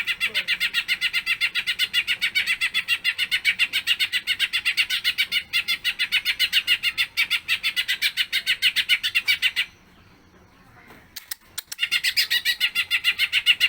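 Cucak ijo (leafbird) singing a fast, even stream of sharp chirps. The chirps break off about ten seconds in, a few clicks sound in the short pause, and the bird starts again near the end.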